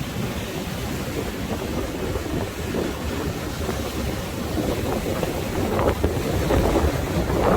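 Sea waves surging against the shore, with wind buffeting the microphone in a low rumble; it swells louder near the end.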